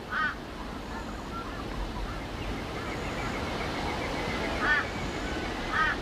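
Short, harsh bird calls, one right at the start and two close together near the end, with a few fainter calls between, over a steady background hiss.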